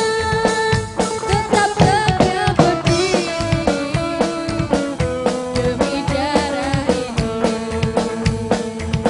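A live rock band playing a song: a drum kit keeping a steady beat under electric guitars and an upright double bass.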